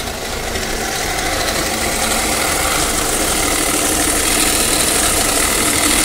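Tata Safari diesel engine idling with a steady rattling noise from the belt-driven accessories at the front of the engine, which the customer took for a broken bearing; the fault is a worn alternator clutch pulley.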